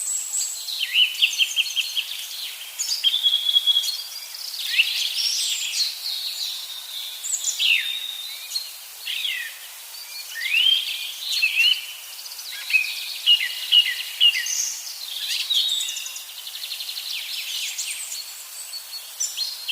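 Several small birds singing and calling at once, a dense overlapping chorus of quick chirps, short trills and downward-sweeping whistles with no pause.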